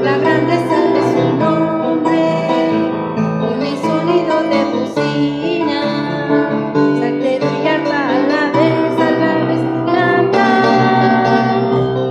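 A woman singing a worship song, accompanied on keyboard.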